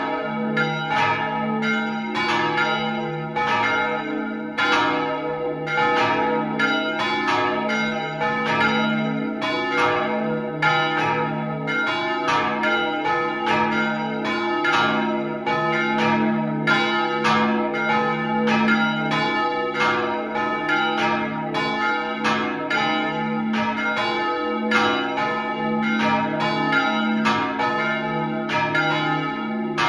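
Three church bells swinging and ringing together, heard up close inside the belfry: a great bell cast in 1489 tuned to D♯, a middle bell recast in 1900 tuned to G♯, and a small early-1200s bell tuned to F. Their clapper strokes fall unevenly, about two a second, over a sustained ringing hum.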